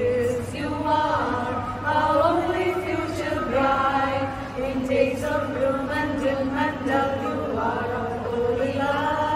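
A group of women singing a song together, their voices holding and gliding through a slow melody.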